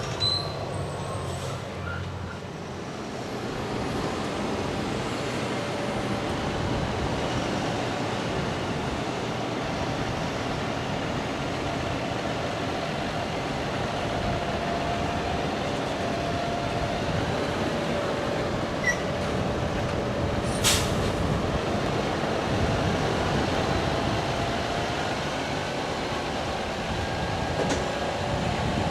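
Heavy farm machinery running steadily, with rattling noise and a faint whine; one sharp click about two-thirds through.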